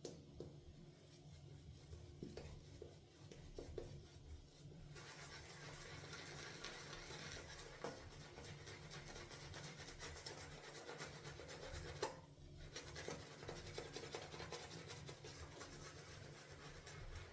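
Shaving brush working tallow-based shaving soap into a lather with added water, a soft wet bristly rubbing. It is faint at first, grows steadier and louder about five seconds in, and stops briefly after a small click about two-thirds of the way through before carrying on.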